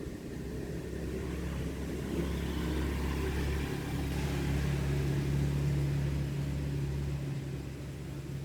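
Steady low mechanical hum with a hiss that swells in the middle and eases off near the end.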